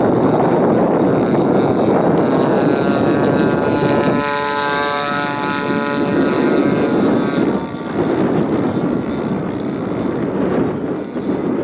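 Petrol engine and propeller of a 30cc-class radio-controlled Edge 540 aerobatic plane in flight, its buzzing engine note clearest in the middle, with wind on the microphone.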